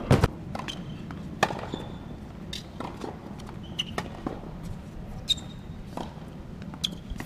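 A tennis rally on a hard court: a dozen or so sharp knocks of racket strikes and ball bounces, irregularly spaced. The loudest is a close double knock just at the start. A few short, high squeaks come after some of the knocks, typical of tennis shoes on the court surface.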